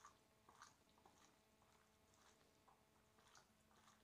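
Near silence, with a few faint, soft wet squishes of hands rubbing spice paste into raw chicken pieces.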